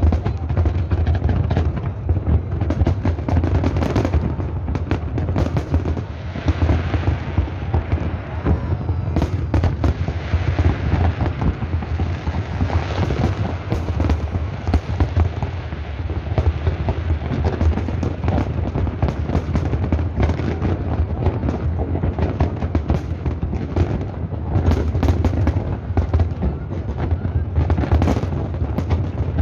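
Massed aerial firework shells bursting in a continuous barrage: rapid, overlapping booms and crackles with no pause, over a steady low rumble.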